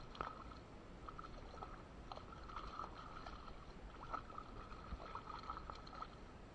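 Hooked trout thrashing at the surface, with small irregular splashes and a hand slapping and dipping into the shallow water to grab it.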